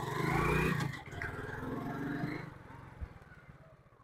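Single-cylinder motorcycle engine running as the bike pulls away, its exhaust beat fading into the distance after about two and a half seconds.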